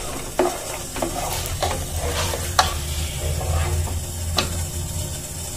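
Ladle stirring thick pumpkin soup in a pot, scraping through it with several sharp knocks against the pot, over a low steady hum.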